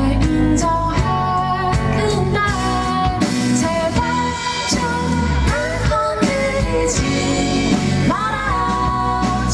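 Live indie-pop band music: a woman singing a held, gliding melody over guitar, bass and regular percussion hits.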